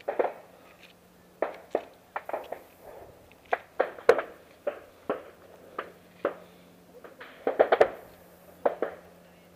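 Footsteps climbing steep wooden railroad-tie steps: irregular sharp thuds close to the microphone, roughly one every half second to second, with a quick flurry of knocks near the end.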